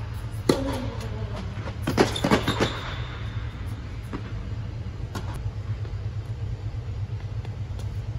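Tennis rally on an indoor court: sharp racket strikes and ball bounces, a cluster of three about two seconds in and single ones scattered after, over a steady low hum.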